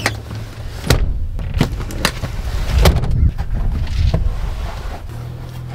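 Clunks and knocks of an SUV's rear seats being folded down and gear being handled in its cargo area: about half a dozen sharp knocks over a steady low rumble.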